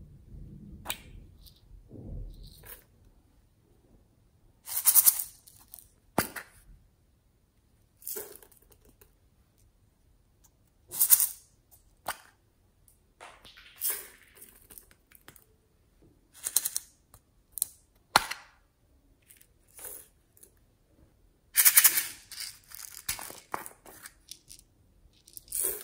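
Small plastic containers being handled and their lids opened: a string of separate clicks, snaps and short scraping rustles, a second or more apart.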